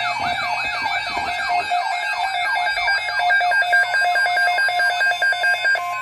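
NOAA weather radio receiver sounding its alert alarm for a winter storm watch. A rapid falling siren-like warble repeats about five times a second, strongest in the first couple of seconds, over a pulsing two-pitch beep that keeps going throughout.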